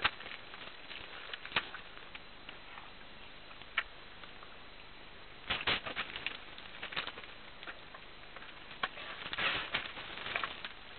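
Wet mud squelching and slapping as African forest elephants move and wallow in it: scattered short slaps and clicks over a steady hiss, with a cluster about halfway through and another near the end.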